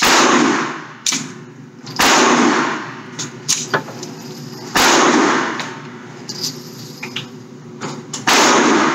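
Four loud single gunshots, spaced about two to three and a half seconds apart, each with a long echoing tail, and fainter clicks between them.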